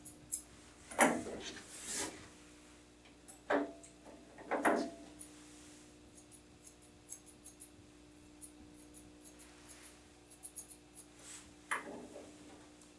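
Dog grooming scissors snipping through a Pekingese's long coat: a run of small, crisp clicks, with a few louder rubbing sounds of hair and hands in the first few seconds.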